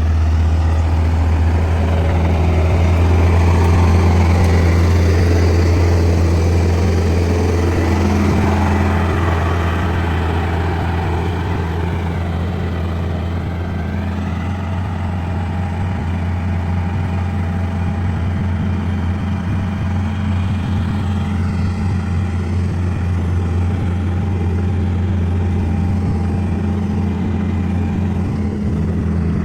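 Komatsu bulldozer's diesel engine running steadily with a low drone, a little louder in the first few seconds.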